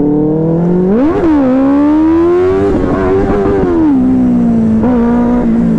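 Benelli TNT 600i inline-four superbike engine running through a loud aftermarket exhaust under hard acceleration. The revs climb sharply about a second in, drop at a gear change, climb again, then ease off and hold steady near the end.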